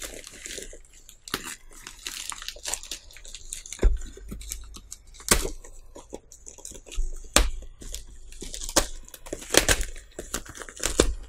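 Grey plastic poly mailer bag being cut and pulled open with a folding knife: irregular crinkling and tearing of the plastic, with many sharp crackles.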